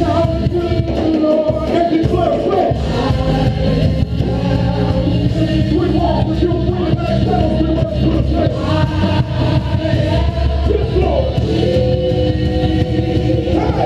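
Loud music with singing voices over a steady, bass-heavy backing.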